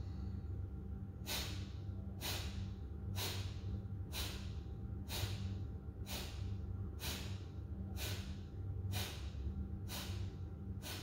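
Kapalabhati breathing at medium speed: a woman's short, forceful exhalations through the nose, about one a second, each followed by a passive inhalation.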